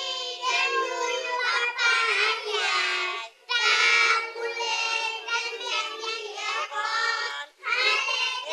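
Young girl singing into a handheld microphone, in phrases with two short breaks for breath.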